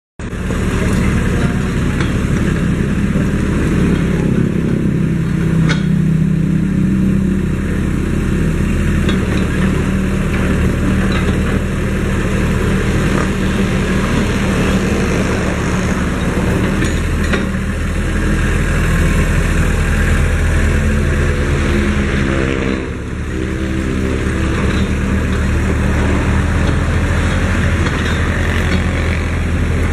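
Kubota KH11-H mini excavator's diesel engine running steadily, with a brief dip in loudness about three-quarters of the way through.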